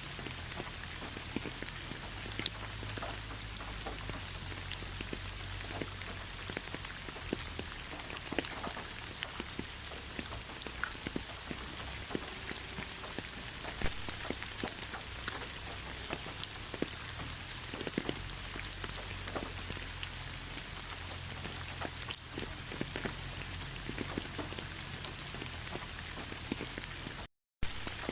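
Steady rainfall, an even hiss with many individual drops ticking sharply on a surface. The sound cuts out for a split second near the end.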